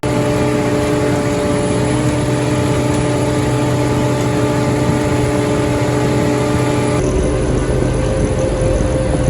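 Heavy diesel machinery running steadily, with an abrupt change in the sound about seven seconds in.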